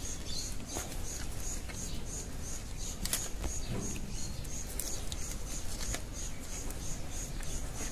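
A high, even chirp repeating about twice a second in the background, over a low steady rumble, with a few faint clicks and a brief murmur of a voice about halfway through.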